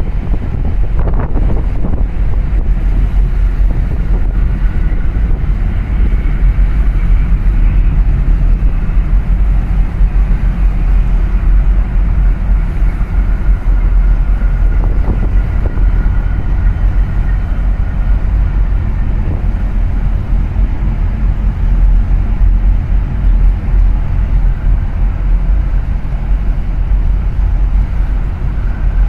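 Wind buffeting the microphone over a steady low engine rumble from boats on the water. A faint high whine comes and goes in the middle.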